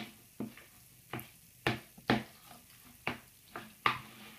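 Metal spoon stirring thick, wet cottage cheese and gelatin mixture in a plastic bowl. The strokes are short and squelching, about two a second.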